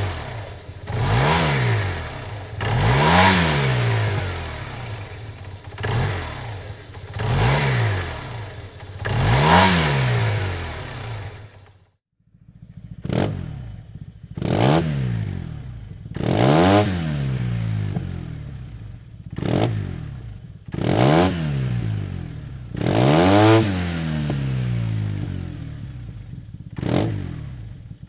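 A 2008 Yamaha TMax 500's parallel-twin engine is revved in repeated short blips through a Dominator aftermarket exhaust. Each blip rises in pitch and falls back to idle. About twelve seconds in, the sound cuts out briefly, then the blips resume.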